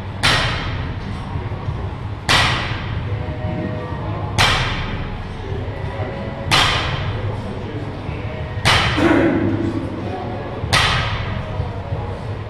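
A 75-lb bumper-plate barbell drops onto rubber gym flooring between power snatches: a sharp thud with a ringing tail about every two seconds, six times.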